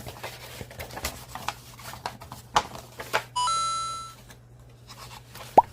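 Handling of cardboard game pieces and packaging, short clicks and rustles, with a single electronic chime about three and a half seconds in that rings and fades within a second. A brief rising chirp follows near the end.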